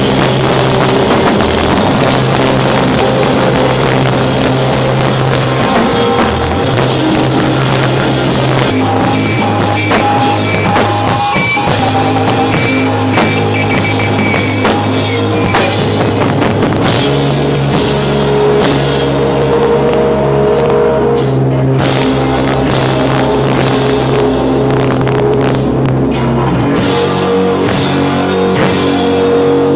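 A rock band playing live and loud: distorted electric guitars, bass and a drum kit with cymbals.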